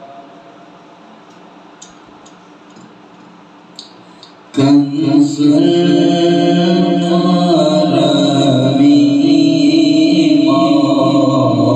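A quiet lull with a chanted voice fading out, then music with singing starts suddenly about four and a half seconds in and carries on loudly in long held notes.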